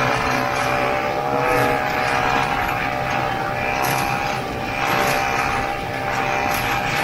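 Vintage 1969 Ski-Doo Olympic 320 snowmobile's two-stroke engine running at a steady speed under way, a constant engine note over wind and track noise.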